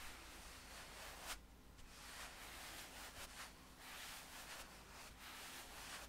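Paintbrushes brushed back and forth over bare skin on the neck: a faint, soft bristle hiss in several strokes, beginning about a second in.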